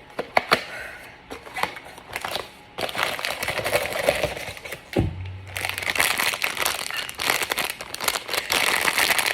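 Plastic and foil blind-box packaging being handled and torn open, with sharp crinkles and crackles that grow into steady crinkling about three seconds in. There is a single thud about five seconds in.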